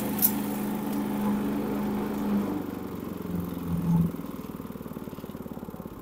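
Mighty Mac chipper shredder's 3 hp Briggs & Stratton engine running steadily, then slowing with a falling pitch and dying out about four seconds in as it is shut down. The machine then spins down with a faint, fast, rhythmic ticking.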